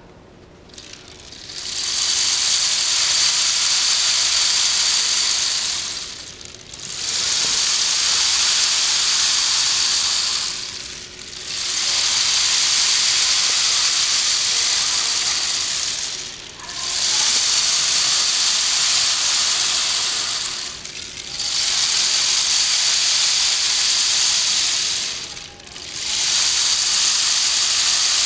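A homemade rain stick turned end over end, its fill pouring down the tube in a high-pitched, rain-like rush. Six long pours of about four to five seconds each, with a brief lull between them as it is flipped; the last is still running at the end.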